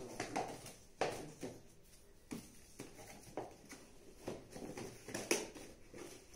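Small cardboard box knocking and scraping on a stone-tiled floor as a husky puppy pushes it with its nose: irregular knocks about once a second, the sharpest one near the end.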